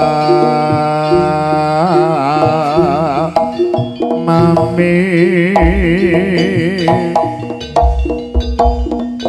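Live Javanese jaranan music: sustained pitched tones and drum strokes under a long, wavering melody line. Deep drum thuds come in the second half.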